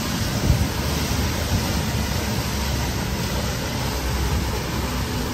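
Steady rush of wind and water past an X Shore electric boat running at speed, with wind buffeting the microphone; the electric drive adds no clear engine note. A single low thump comes about half a second in.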